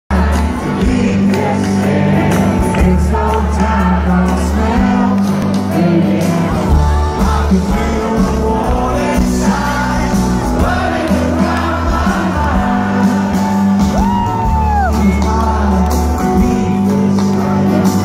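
A rock band playing live with a sung lead vocal through a large open-air PA, heard from within the crowd, with strong bass and shouts from the audience.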